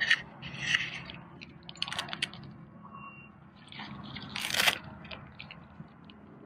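Nylon tent fabric rustling and crinkling as it is handled, with scattered small clicks and a louder rustle about four and a half seconds in.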